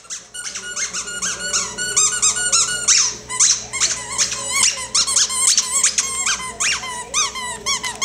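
A dog chewing a squeaky toy, squeezing out a rapid, unbroken run of high squeaks several times a second, some short and some longer with a rising-and-falling pitch.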